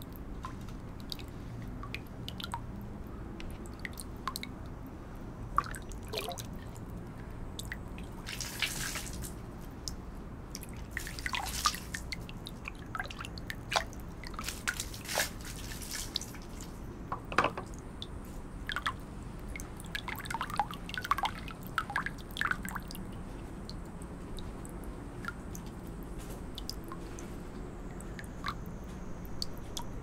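Water flowing gently from the mouth of a bronze dragon spout into the basin of a Japanese shrine's chōzuya purification fountain, heard as irregular drips and small splashes, busier in clusters through the middle.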